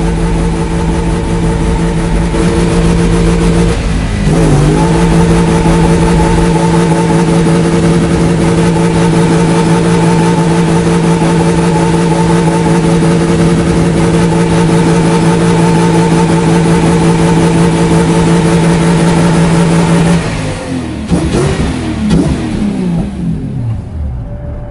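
Swapped V8 engine of an FSO Polonez held at steady high revs during a burnout, tyres spinning and smoking. About four seconds in the revs dip and pick up again. About twenty seconds in it comes off the throttle, the revs falling and wavering as it winds down.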